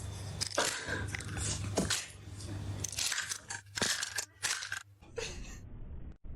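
Crunching and chewing sounds: a run of sharp, irregular crackles over a low steady hum, breaking off shortly before the end.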